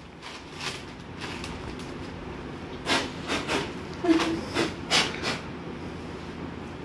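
Foil chip packet crinkling in a few short bursts as a chip is taken out of it, over a steady low hum.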